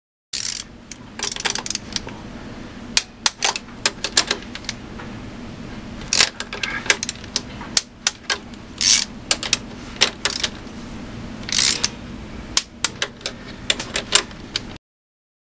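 Wrench working the high-pressure injection line nuts on an MAN V12 diesel's injection pump: irregular sharp metallic clicks and short clattering runs of tool on fittings, over a low steady hum.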